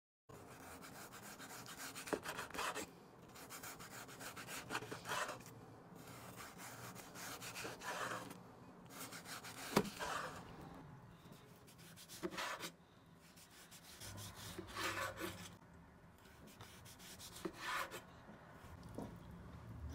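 A large knife slicing half-frozen beef thinly on a wooden cutting board: a series of drawn cutting strokes every two or three seconds. Now and then there is a sharp knock as the blade meets the board, the clearest about halfway through.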